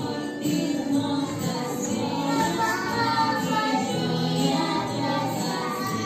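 A group of young children singing a Christmas song together over musical accompaniment.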